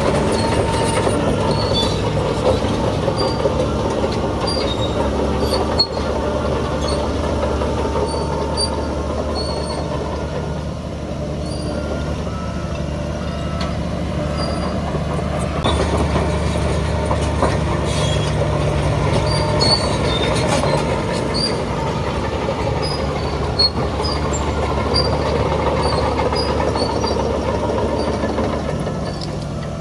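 Shantui DH17C3 crawler bulldozer working, its diesel engine running steadily while the steel tracks give short, high squeaks and occasional clanks as it moves.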